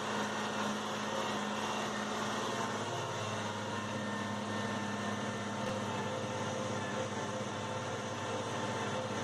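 Tractor's diesel engine running steadily under load as it pulls a field cultivator through the soil, heard from inside the cab. Its low tone shifts slightly about three seconds in.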